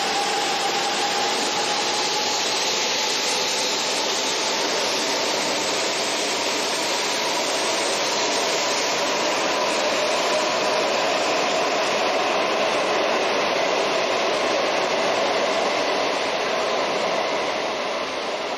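E4 series double-decker Shinkansen running along the platform and pulling away: a steady rushing train noise with a faint tone slowly falling in pitch, fading near the end.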